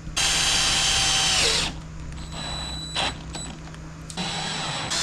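Drill with a drywall dimpler bit driving a screw into plasterboard: one run of about a second and a half, its whine dropping as it stops, then a brief knock about three seconds in.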